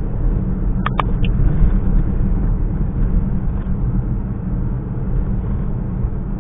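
Vehicle travelling on a highway: a steady low rumble of road and engine noise, with a few brief clicks about a second in.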